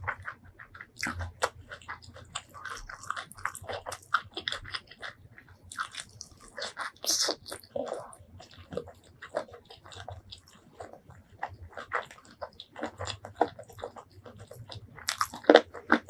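Close-miked eating sounds: irregular chewing with wet mouth clicks and crunchy bites, with a louder cluster of bites near the end.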